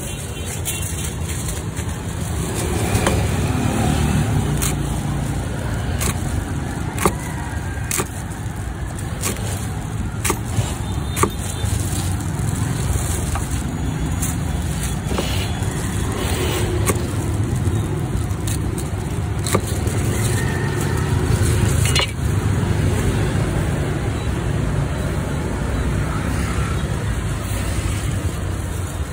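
Steady rumble of street traffic, with scattered sharp clicks and knocks.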